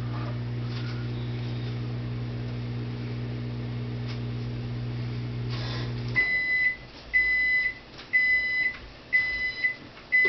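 Microwave oven running with a steady hum that cuts off about six seconds in, followed by its end-of-cycle beeps: five high beeps about a second apart.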